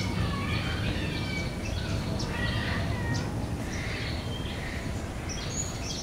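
Birds calling, many short pitched calls one after another, over a steady low background rumble.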